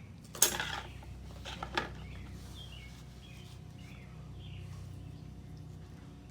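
Two short, sharp cutting sounds in the first two seconds as the excess end of a rubber tire plug is trimmed off at the tread. Birds chirp throughout over a steady low hum.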